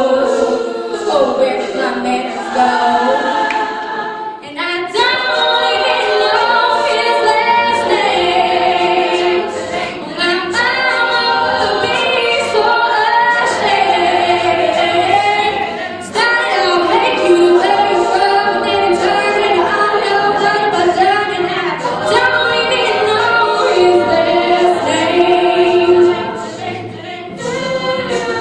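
Women's a cappella group singing in harmony over microphones, several voices together in phrases with short breaks between them.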